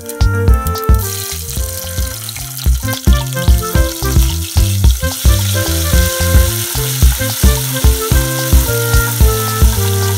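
Cumin seeds and green chillies sizzling in hot oil in a steel pot while being stirred with a metal spoon; the sizzle starts about a second in and holds steady. Background music with a steady beat plays underneath.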